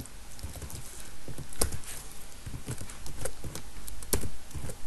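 Computer keyboard keystrokes, a dozen or so single clicks at an uneven pace.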